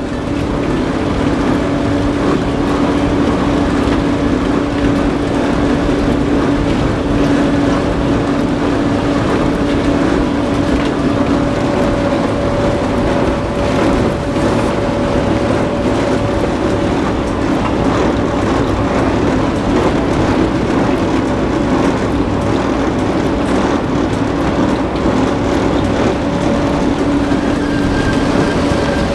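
Grimme Maxtron 620 self-propelled sugar beet harvester running while lifting beet: a steady, unbroken drone of engine and lifting machinery with a constant hum.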